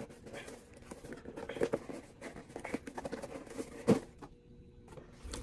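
A cardboard gift box being opened and handled, with scattered rustling and light tapping as little stars spill out and patter onto the floor; a sharp click about four seconds in.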